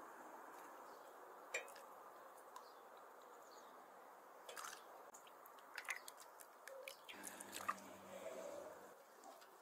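Faint handling of soup: a few light knocks of a wooden ladle and spoon against a steel pot and bowl, with soft slopping of liquid as thick tripe soup is ladled into the bowl and stirred.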